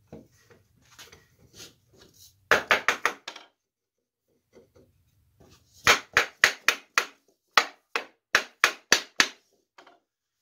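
Sharp hammer blows on the wooden bench frame, knocking its dowel joints and the new stretcher's tenons home: a quick run of about six blows, a pause, then about a dozen evenly spaced blows.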